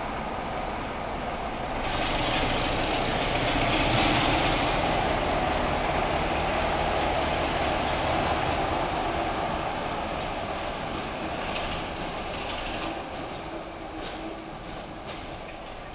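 Class 33 diesel locomotive D6515 pulling away: its diesel engine opens up about two seconds in, then fades steadily as the locomotive draws away.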